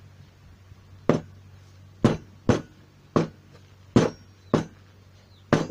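Steel claw-hammer head knocked down onto a wooden workbench seven times, sharp separate knocks at an uneven pace. It is being centred on its newly fitted solid iron handle.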